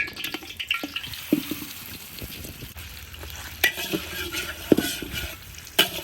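Marinated chicken pieces going into hot oil and frying with a steady sizzle, with three sharp knocks in the second half.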